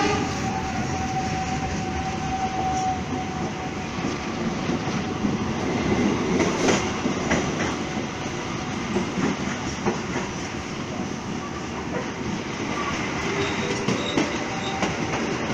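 Local passenger train running over the rails, heard from an open carriage doorway: a steady rumble with the clatter of wheels over rail joints and points, thickest about halfway through. A thin steady squeal sounds for the first few seconds.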